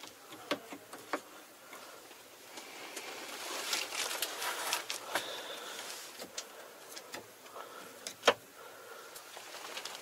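Tractor cab control levers and joystick being worked by hand: a handful of sharp plastic clicks and clunks, the loudest about eight seconds in, with soft rustling of handling in between.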